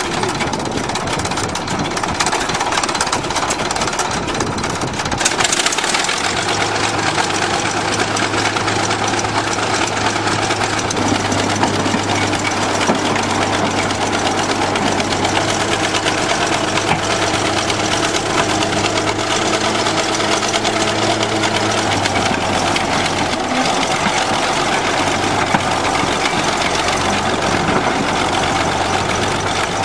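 Bulldozer's diesel engine running steadily under the operator's control. A steady low hum sets in about six seconds in and holds to the end.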